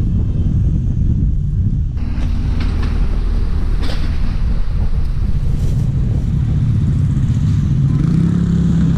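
Wind noise on the microphone of a camera riding on a moving bicycle, over street traffic. Near the end a motor scooter's engine hum comes in, rising slightly in pitch.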